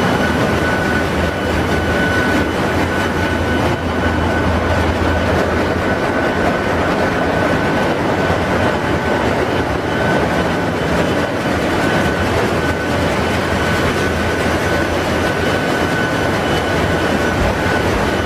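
Ship's engine-room machinery running steadily: a loud, constant rumble with a thin, steady whine over it.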